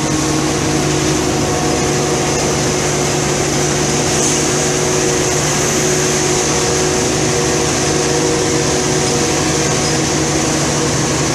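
City bus under way at steady speed, heard from inside the passenger cabin: a steady engine drone with a few low, even tones under a constant rush of road and wind noise.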